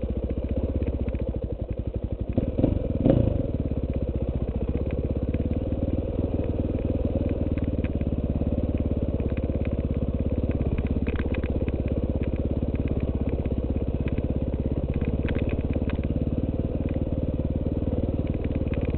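KTM 450 EXC single-cylinder four-stroke engine running steadily as the dirt bike rides a trail, with a short burst of throttle about three seconds in.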